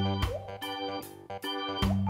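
Background music: held organ-like keyboard chords with strong bass notes, changing every second or so.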